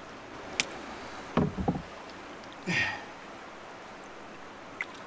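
A few scattered knocks and taps against a canoe, with a cluster of low knocks about a second and a half in and a louder hollow knock near the middle, over a steady hiss of moving creek water.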